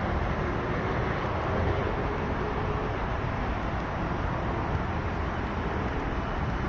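Steady low outdoor rumble of a train moving away and distant traffic.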